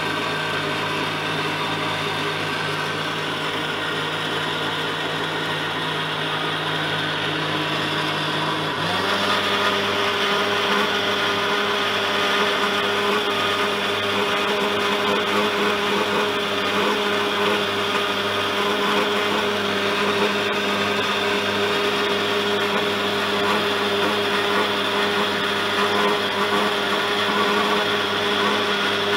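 Electric countertop blender running, blending bananas, milk and sugar into a milkshake: a steady motor whir whose pitch steps up and gets a little louder about nine seconds in, then holds steady.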